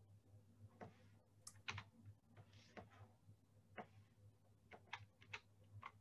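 Faint, irregular tapping of computer keyboard keys over a low steady hum.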